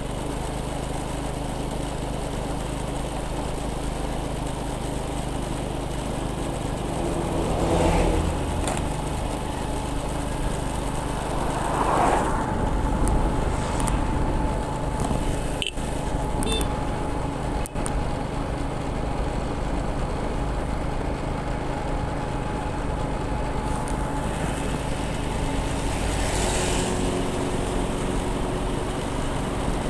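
Motorcycle riding on a road: the engine runs steadily under wind and road noise. The sound swells louder about 8, 12 and 27 seconds in.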